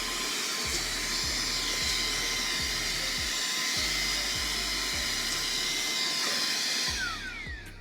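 Saker 3-in-1 cordless mini vacuum running in blower mode: a steady high-pitched motor whir with rushing air. About seven seconds in it is switched off and its pitch falls as the motor spins down.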